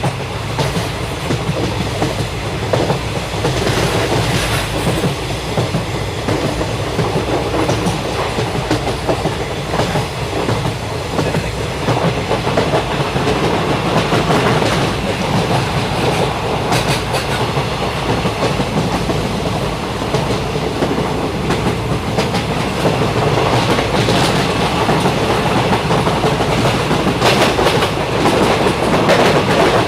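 Indian Railways passenger coach running on the rails, heard from a window seat: a steady rumble with the clickety-clack of wheels passing over rail joints.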